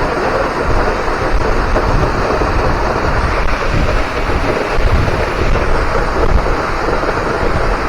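Hemlock Falls waterfall: a loud, steady rush of falling water, with an uneven low rumble underneath.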